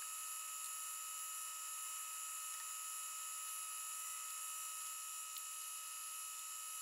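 Metal lathe running steadily with the carriage on power feed, turning down a mild steel spindle: a steady, even whine with no breaks.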